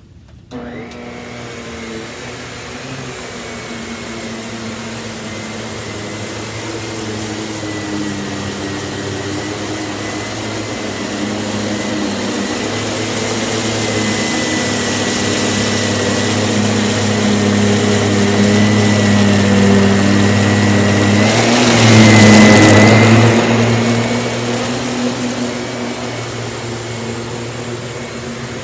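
Miele S194 Quick Step stick vacuum switching on about half a second in and running while vacuuming up rice from the floor with its powered brush head. It makes a steady motor hum with a high whine that grows louder to a peak a little past the middle, then eases off.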